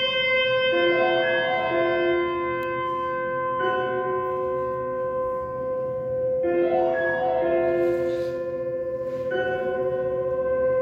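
Slow ambient music of long sustained tones: one steady note is held throughout while the notes around it change together about every three seconds.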